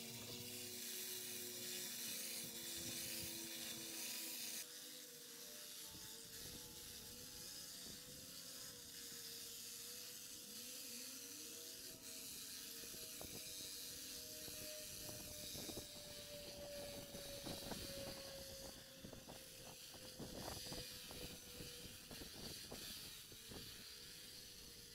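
Faint, steady running of a small petrol engine on lawn equipment, with a hiss over it and a pitch that drifts slowly. The sound changes abruptly about four and a half seconds in.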